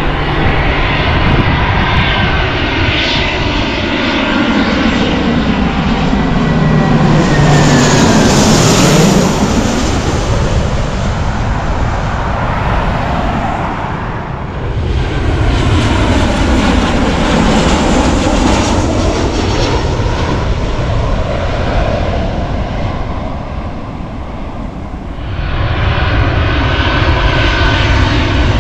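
Jet airliners on landing approach passing low overhead: a loud engine rumble and whine whose pitch glides downward as each aircraft goes by, loudest about a third of the way in. The sound shifts abruptly twice as a new pass begins, the last one building loud again near the end.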